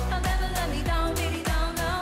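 Upbeat pop song: a woman singing over a steady dance beat, with a kick drum about twice a second.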